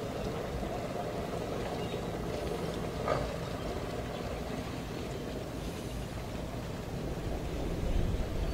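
Boat engine running at idle, heard from a distance, with a low rumble swelling near the end and a short knock about three seconds in.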